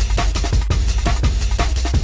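Jungle drum and bass track: fast breakbeat drums over a heavy, steady sub-bass line.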